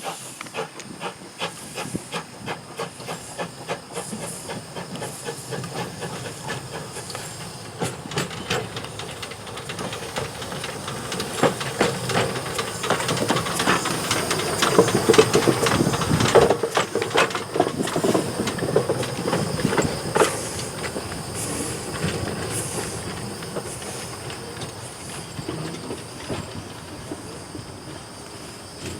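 Steam locomotive hissing steam as it moves along the track, with frequent sharp clicks of metal on rail. The sound builds to its loudest about halfway through, then fades.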